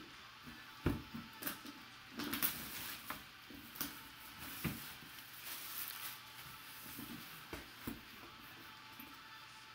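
Sealed cardboard box being handled and turned over by hand on a tabletop: scattered knocks, taps and brief rustles of cardboard, the sharpest a little under a second in and again near the middle.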